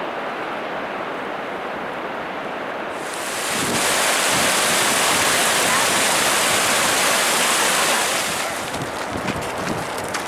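Steady rushing noise, then from about three seconds in the louder, brighter rush of a fast glacial mountain stream tumbling over rocks, lasting about five seconds before falling back to the quieter rush, with a few small clicks near the end.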